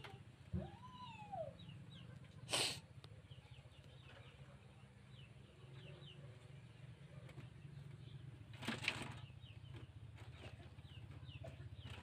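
Rabbits moving about in a wire cage on cut banana leaves, with two short bursts of rustling, one about two and a half seconds in and one near nine seconds. Small birds chirp faintly throughout over a low steady hum.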